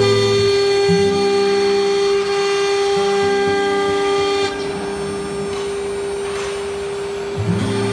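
A CNC router's 4.5 kW water-cooled spindle whines at one steady pitch as it engraves MDF. Under it, the axis motors hum in tones that step up and down in pitch as the head moves.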